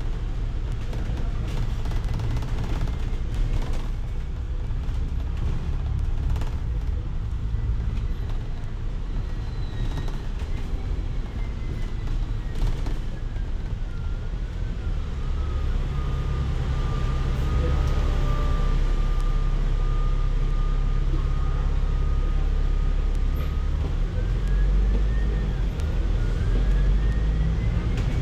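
A city bus's engine and drivetrain running, heard from inside the cabin: a heavy low rumble with a thin whine that drops in pitch, holds steady for several seconds, then climbs again near the end as the bus slows, cruises and picks up speed. The rumble grows louder about two-thirds of the way through.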